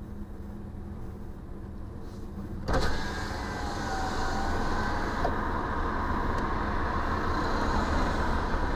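Car engine and road noise heard inside the cabin: a steady low rumble that jumps suddenly, about three seconds in, to a louder rushing noise that then holds steady.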